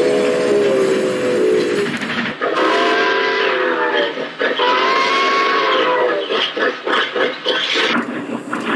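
Steam locomotive whistle, presented as a Southern Pacific cab-forward's, blowing a chord of several steady tones, then two more long blasts whose pitch wavers. A quick run of short sharp beats follows before the whistle sounds again near the end.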